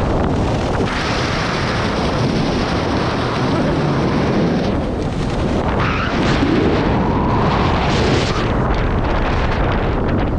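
Wind buffeting the microphone of an action camera held out on a selfie stick during tandem paragliding maneuvers: a loud, steady rushing noise.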